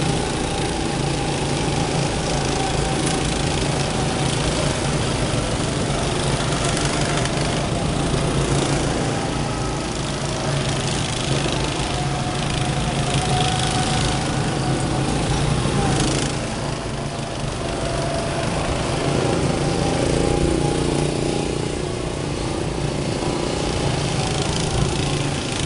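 Small go-kart engines running steadily as karts lap the track, a continuous drone, swelling a little as a kart passes close about twenty seconds in.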